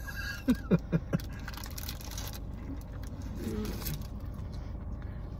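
Four quick, short vocal sounds from a person with a closed mouth, like muffled 'mm's or stifled laughs, about half a second in, then a steady low hum inside a car cabin with a faint murmur near the middle.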